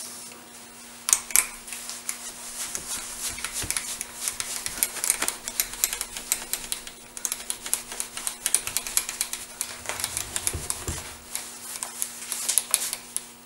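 Quick, irregular metal clicks and taps as a lathe's quick-change tool post and its slides are handled and moved by hand, over a faint steady hum.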